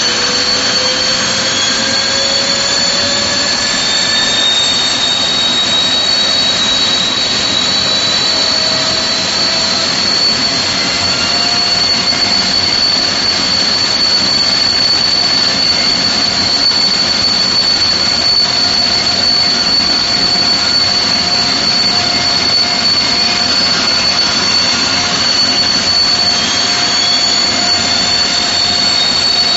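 Vickers Vanguard airliner's Rolls-Royce Tyne turboprop engines running on a ground run: a steady roar with a strong high-pitched whine, and fainter tones that slowly climb in pitch.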